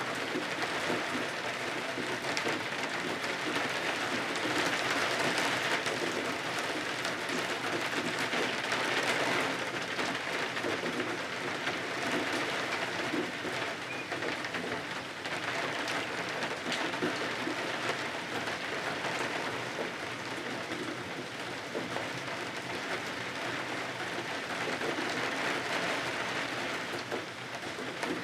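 Steady rain falling, swelling and easing every few seconds.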